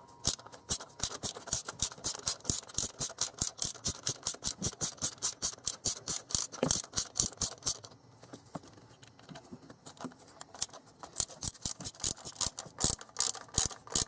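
Hand socket ratchet clicking rapidly, about five clicks a second, as the water pump bolts are turned a little at a time. This is done to walk the pump and its O-ring evenly into the housing. The clicking eases off briefly about eight seconds in, then picks up again.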